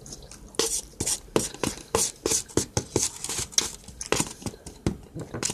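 Close-up chewing with many sharp, irregular mouth clicks and crunches.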